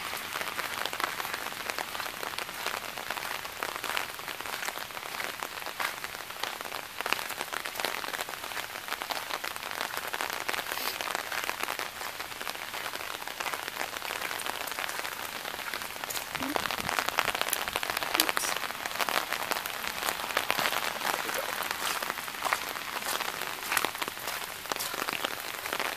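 Steady rain falling and pattering, a dense spread of small drop impacts close by.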